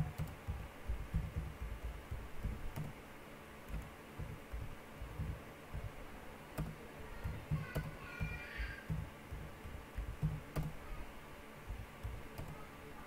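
Computer keyboard being typed on, irregular keystroke taps and clicks coming in short bursts. A brief high chirp sounds about eight seconds in.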